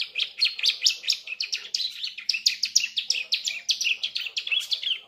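Young bar-winged prinia (ciblek) singing a fast, unbroken run of sharp, high chirps, about eight a second. It is the chattering practice song of a juvenile bird that is just learning to sing.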